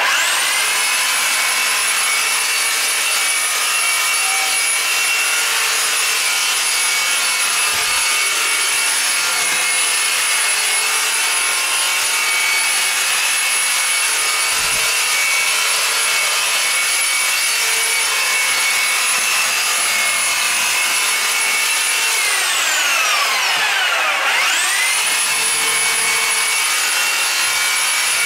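Reciprocating saw running continuously with a high motor whine as its blade cuts through a Christmas fir's trunk and branches. Near the end the motor slows sharply, its pitch falling, then speeds back up.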